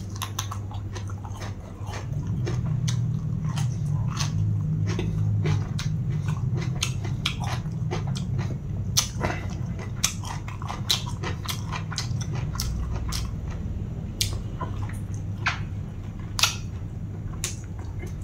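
A person chewing a mouthful of spicy long-bean salad close to the microphone: an irregular run of crisp crunches and wet mouth clicks, over a low steady hum through much of the first two-thirds.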